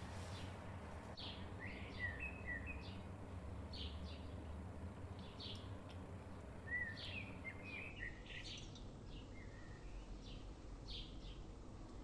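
Small birds chirping: short high chirps repeating roughly once a second, with brief lower warbling notes about two seconds in and again past the middle, over a low steady background noise.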